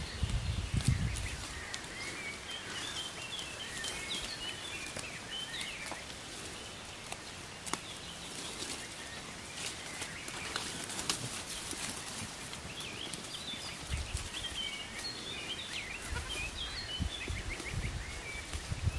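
Goats browsing on cut leafy branches: leaves rustling and twigs crackling as they pull and chew. A small songbird sings in short chirping phrases twice, and there is a low rumble near the start and again from about three-quarters of the way through.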